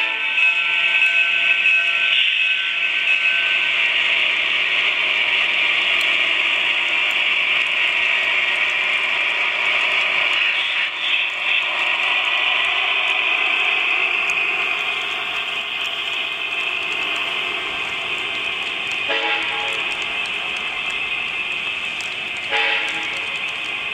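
HO scale model train rolling past: a steady high whirr from the locomotive motors and wheels on the track, with a couple of brief tones near the end.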